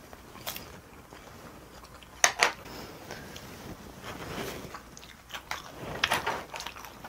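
A person eating a mouthful of stew and rice: wet chewing and smacking, with a few sharp clicks, the loudest about two seconds in.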